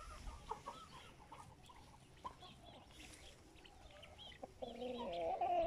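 Chickens clucking with many short calls, then one bird gives a louder, drawn-out call near the end.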